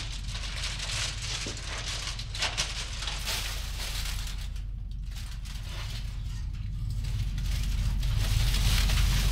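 Crumpled metallic foil sheeting crinkling and crackling as hands press and brush over it, with a dip about five seconds in. A low rumbling drone underneath grows louder near the end.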